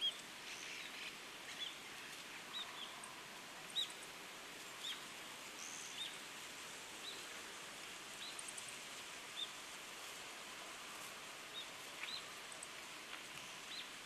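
Short, high bird call notes repeated roughly once a second over a steady outdoor background hiss.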